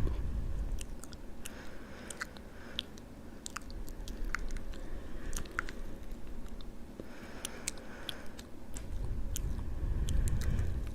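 Close-miked wet mouth sounds: irregular lip smacks and tongue clicks, with a low rumble at the start and again for a few seconds near the end.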